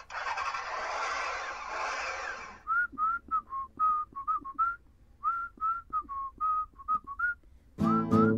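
Intro jingle: a rushing hiss for about two and a half seconds, then a whistled tune of short, separate notes. Near the end, music with guitar comes in under the whistling.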